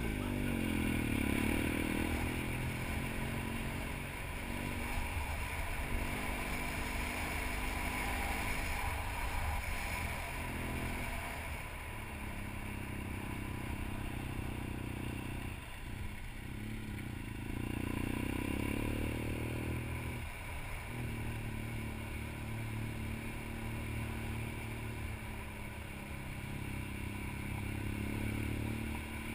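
Twin-cylinder adventure motorcycle engine pulling steadily up a gravel road, heard from on the bike with wind and tyre noise. The engine note rises under throttle and drops back at gear changes a few times, most clearly climbing about two thirds of the way through and then falling at a shift.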